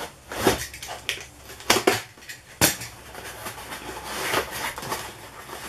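Cardboard shipping box being slit with a utility knife and pulled open by hand: scraping and crackling of cardboard and packing tape, with a few sharp snaps in the first three seconds.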